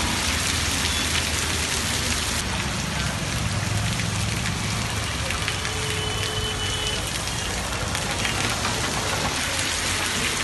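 Heavy rain falling, a steady dense hiss of drops.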